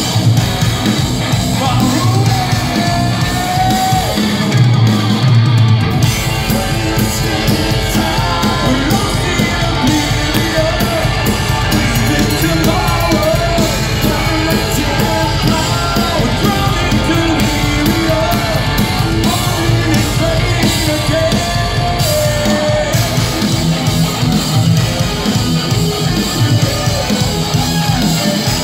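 Progressive metal band playing live, with a male lead singer's voice over electric guitar, keyboards and drums.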